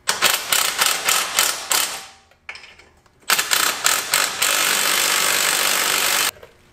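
Cordless impact wrench hammering as it runs the front strut-to-knuckle bolts tight: a burst of about two seconds, then a longer steady run of about three seconds that cuts off suddenly.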